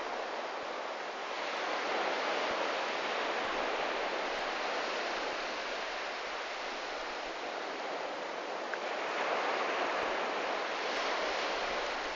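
Sea waves washing onto a beach: a steady rushing that swells twice as waves break, once near the start and again near the end.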